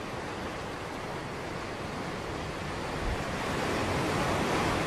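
Sea waves breaking and washing up onto a sandy beach: a steady rush of surf that grows a little louder toward the end.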